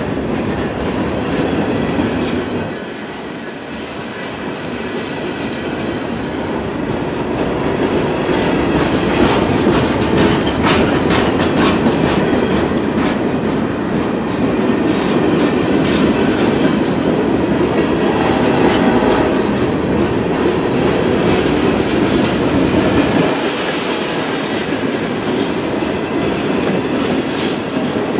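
Freight cars (covered hoppers and boxcars) rolling past: a steady rumble of steel wheels on the rail with a clickety-clack over the rail joints. It dips a few seconds in, then grows louder and stays so until near the end.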